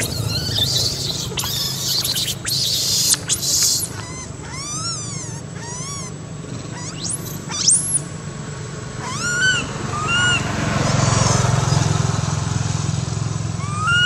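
Baby long-tailed macaque screaming in distress while its mother holds it pinned down. It gives harsh screams at first, then short runs of high, arched cries that rise and fall.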